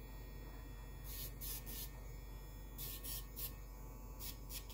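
A battery pet nail grinder runs with a faint steady hum. Its spinning bit touches a puppy's claws in several short, hissy scratching bursts.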